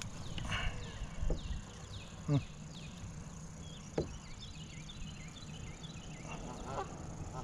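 Small birds chirping over and over in the background over a low steady hum, with a few sharp knocks, the loudest about two seconds in.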